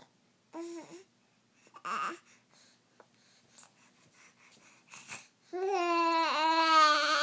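A small child babbling: a few short voice sounds, then, about five and a half seconds in, a long loud held vocal sound that dips in pitch once partway through.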